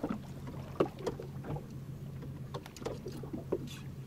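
Boat engine idling with a steady low hum, with scattered small knocks and clicks over it, the sharpest about a second in.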